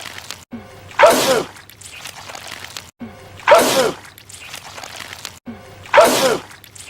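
A man sneezing loudly, three times about two and a half seconds apart, as the same short sneeze clip repeats; each sneeze is a short rising breath in, then a loud burst.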